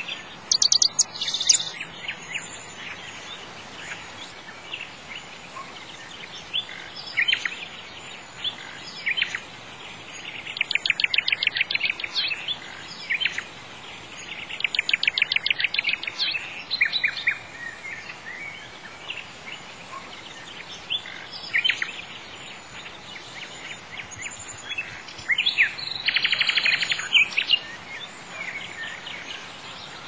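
Nightingale singing: varied phrases of rapid repeated notes and short whistles, broken by pauses, over a faint steady hiss.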